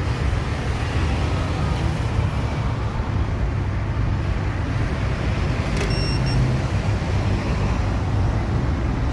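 Steady low rumbling background noise. About six seconds in comes a brief click and a short high electronic tone.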